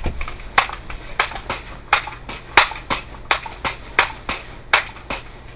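A string of sharp, irregular metallic clicks and taps, about three a second, from a scoped air rifle being handled at its action.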